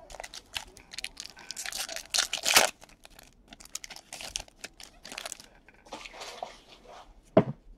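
Trading card pack wrapper being torn open and crinkled, with cards rustling as they are handled; densest about a second in, then scattered rustles. One brief louder low sound near the end.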